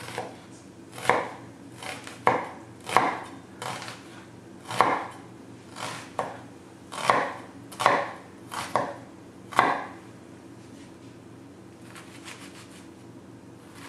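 Kitchen knife cutting an onion on a cutting board: about a dozen unhurried, separate strokes, stopping about ten seconds in.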